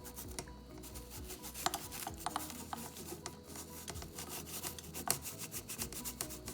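A spoon scraping and tapping repeatedly against a container, breaking up clumped baking powder, in short irregular rasping strokes.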